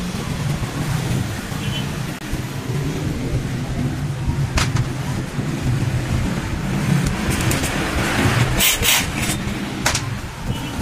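A steady low rumble with a few sharp metal clinks of hand tools being handled on a scooter's CVT, one about halfway through and a quick cluster of them about nine seconds in.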